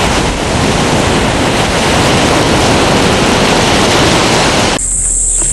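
Sea surf and wind on the microphone: a loud, dense rushing noise. Near the end it cuts off suddenly to a quieter, steady high-pitched hiss.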